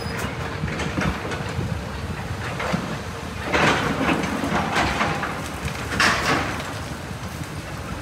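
Excavators on a demolition site: diesel engines running with a steady low rumble, and rubble crashing and scraping under the buckets in short bursts, the loudest about three and a half and six seconds in.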